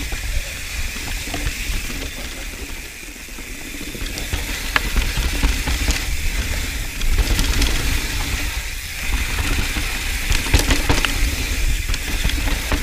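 Mountain bike descending dry dirt singletrack: tyres rolling over dirt and rocks with a steady rumble, and the bike rattling and clicking sharply over bumps, most often near the middle and again about two-thirds of the way in.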